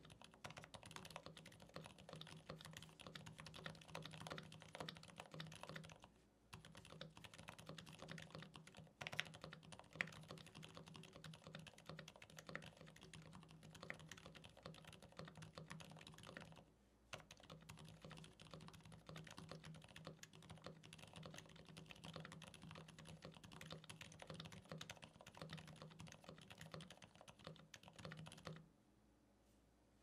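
Faint, continuous fast typing on a Mode Eighty TKL mechanical keyboard fitted with lubed and filmed Gateron Silent Black Ink V2 silent switches. Brief breaks come about six and seventeen seconds in, and the typing stops shortly before the end. The switch scratchiness is cured by lube and film, so what little is heard is mostly fingertips hitting and rubbing the keycaps.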